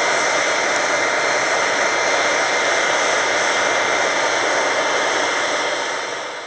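Homemade foundry furnace running hard, a steady rushing roar of air-fed fire around the crucible, with a faint steady whine in it. It eases off slightly near the end.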